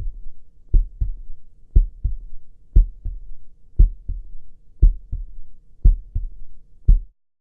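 Slow, steady heartbeat: a low double thump (lub-dub) about once a second, about seven beats, stopping abruptly near the end.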